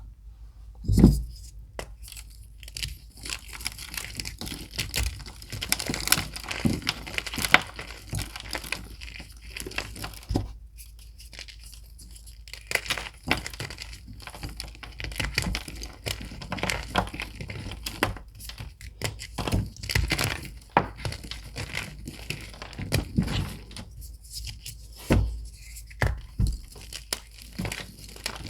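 Blocks of reformed gym chalk being crushed and crumbled by hand: a dense run of small crunches and crackles, with a heavier thump about a second in.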